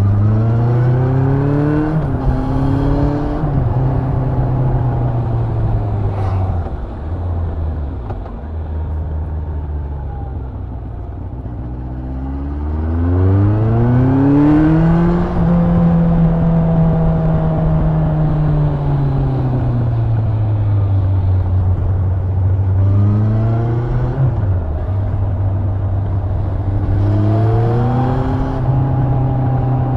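Yamaha FZS1000 Fazer's inline-four engine under way, rising in pitch through quick upshifts, easing off and running quieter for several seconds, then pulling up strongly again and holding steady before two more upshifts near the end.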